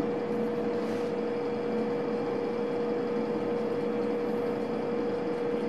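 Steady machine hum: one constant mid-pitched tone over a low, even rushing noise.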